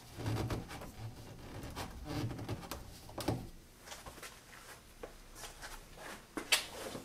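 Handling noises as plastic pipe fittings are pressed onto a dust collector's cyclone inlet: rubbing and several light knocks and clicks, the sharpest about three and six and a half seconds in.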